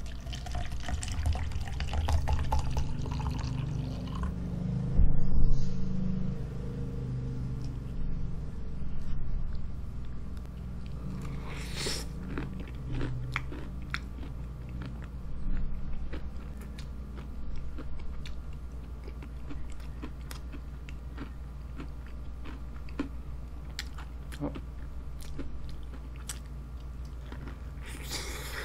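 Close-miked chewing and biting of a fried chicken drumstick coated in melted cheese sauce, with many small mouth clicks throughout. A steady low hum runs underneath.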